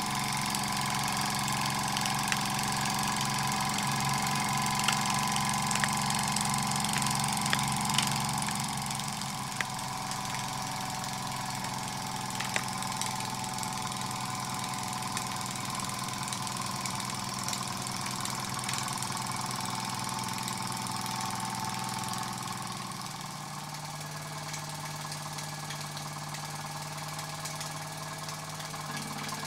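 Kleinemeier (KMV) vertical toy steam engine running fast and steadily, a rapid mechanical chuff and whirr with a few sharp clicks in the first half. It gets a little quieter about a third of the way in and again near the end.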